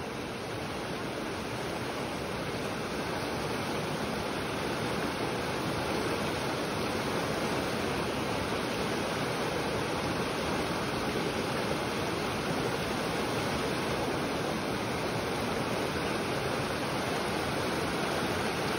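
A muddy, flood-swollen creek rushing fast over rocks: steady, continuous sound of turbulent running water.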